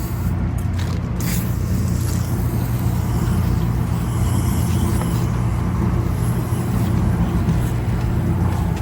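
Steady low hum of rooftop HVAC machinery running, with an even hiss of aerosol foam coil cleaner being sprayed onto the coil and a few brief sharp noises about a second in.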